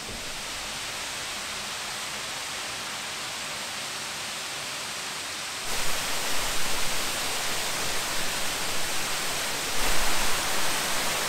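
Tall waterfall rushing down a rock face: a steady hiss of falling water that grows louder and fuller, with a low rumble, about six seconds in, and again near the end.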